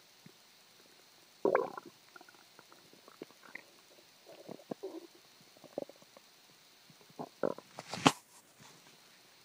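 A human stomach gurgling and rumbling, churning with slight nausea. A loud gurgle comes about one and a half seconds in, then scattered smaller gurgles follow, and a sharp crackle comes just past eight seconds.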